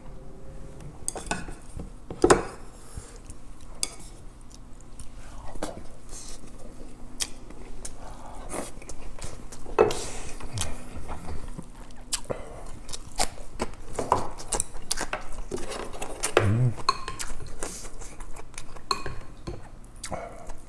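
Close-up eating sounds: food being chewed, with wooden chopsticks and a spoon clicking and scraping against bowls and dishes. The sharpest clinks come about two seconds in and again near ten seconds.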